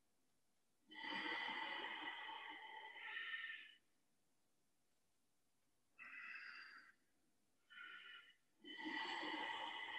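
Slow, audible ujjayi yoga breathing through a narrowed throat: one long breath of about three seconds, then three shorter breaths near the end.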